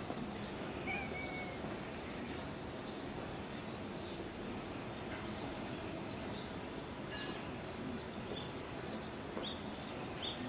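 Outdoor ambience: a steady hum of distant city noise, with a few short high bird chirps in the second half.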